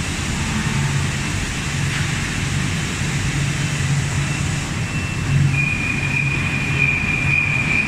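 Industrial machinery running steadily, a loud even noise over a low, pulsing hum. A steady high-pitched whine joins in about five and a half seconds in.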